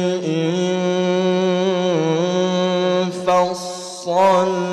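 Male Quran reciter (qari) performing tilawah, holding one long melismatic note with wavering ornaments and pitch turns. It breaks off briefly a little past three seconds in, then resumes.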